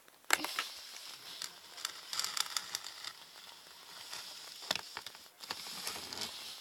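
Faint rustling and a few light clicks and knocks from toys being handled close to the microphone, over a steady hiss.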